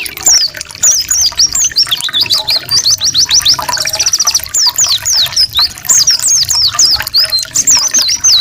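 Songbird song of fast, high trills and rapid rolls of short down-slurred whistled notes, with barely a pause.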